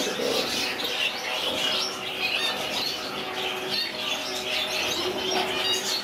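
Many caged birds chirping and calling over one another, a continuous chatter of short high chirps from a mixed collection of lovebirds, budgerigars, finches and cockatiels.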